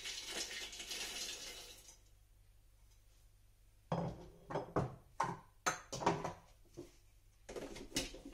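Walnut kernels poured from a plate into the Thermomix's steel bowl, a rattling hiss lasting about two seconds. After a short pause comes a string of sharp knocks and clicks, about two a second, as the machine is handled.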